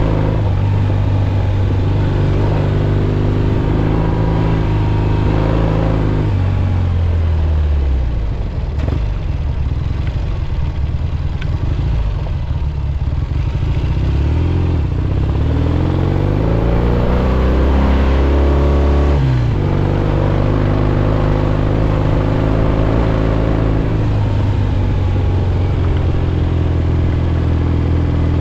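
1967 Triumph Bonneville T120's 650 cc parallel-twin engine under way on a gravel road. The engine note falls off about six seconds in as the throttle closes, climbs steadily from about fourteen seconds, drops suddenly near nineteen seconds as on a gear change, then holds steady, with road and wind noise underneath.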